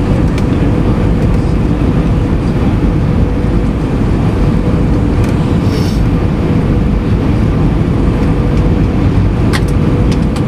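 Steady roar inside the passenger cabin of an Airbus A320 on final approach, jet engines and rushing airflow, with a steady hum running through it.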